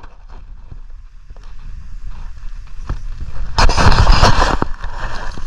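Wind buffeting a camera microphone: a steady low rumble, with a loud rushing surge from about three and a half to four and a half seconds in.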